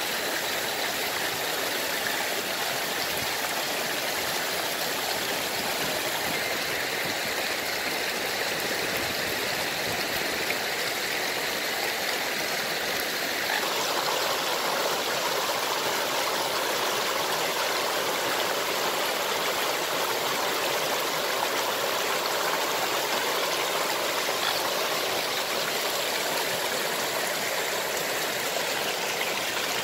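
Water rushing and splashing steadily over rocks at a lake's edge; its tone changes a little about thirteen seconds in.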